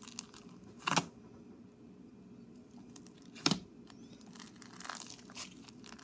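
Thick slime being pressed and poked by hand in a plastic tub: squelching with two sharp pops, about a second in and about three and a half seconds in, and a few softer crackles near the end.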